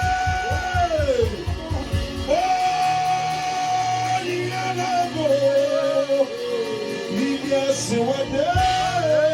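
Live gospel music: a voice holding long sustained notes that slide between pitches, over a band with drums beating in the first couple of seconds and a steady bass underneath.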